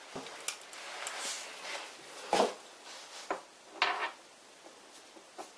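Short metal clinks and knocks with a little scraping, from steel parts being handled and a steel part slid onto a freshly turned taper arbor held in the lathe. The loudest knocks come a little past two seconds and again near four seconds.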